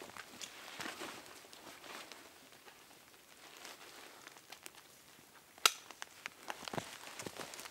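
Quiet, irregular crunching and rustling of a person shifting and stepping in snow with a backpack on, with one sharp click about three quarters of the way through.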